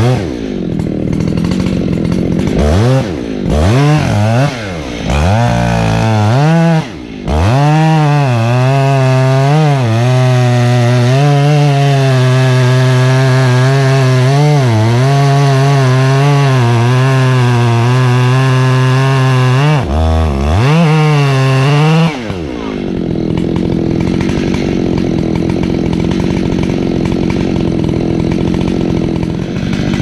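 Chainsaw cutting into the base of a rotten oak trunk. Its engine revs up and down several times, then holds a steady pitch under load in the cut, and drops to a lower idle about two-thirds of the way through.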